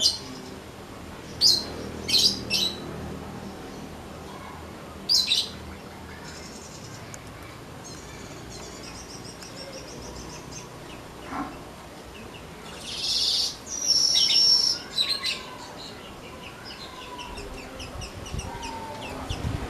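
Manyar (weaver bird) singing: sharp, high chirps and soft ticking chatter, with a loud buzzy wheezing phrase about two-thirds of the way through.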